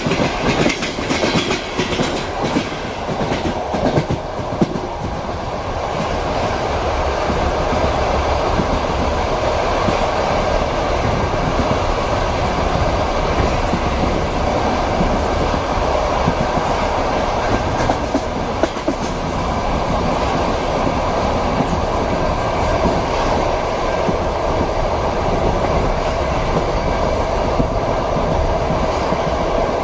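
Moving train heard from inside a passenger compartment: a steady rumble with the clickety-clack of wheels over rail joints, the knocks bunched in the first few seconds and again about two-thirds of the way through.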